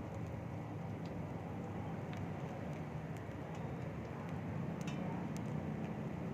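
Steady low background rumble with faint scattered ticks, growing slightly louder about five seconds in.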